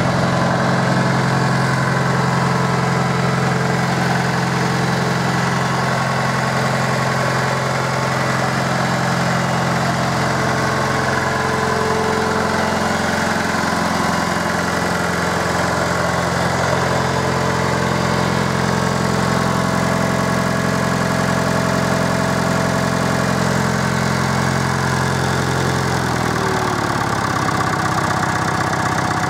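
The diesel engine of a 1977 JCB 2D Mk 2 backhoe loader idling steadily, freshly repaired with one new piston and two new cylinder liners. Near the end its speed drops to a slower idle.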